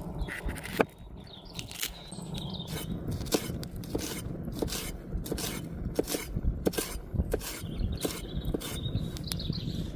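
A series of short scraping strokes, roughly one or two a second and irregular, over a steady low rumble, with a bird chirping faintly a couple of times.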